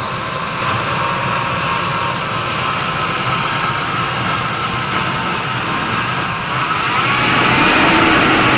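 A vehicle engine running steadily, getting a little louder about seven seconds in, with a wavering whine on top.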